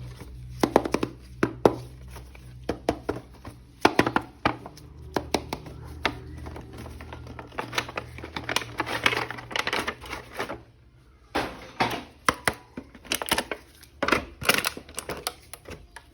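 Hands unboxing a plastic action figure: irregular clicks and taps of hard plastic, with stretches of packaging crinkle.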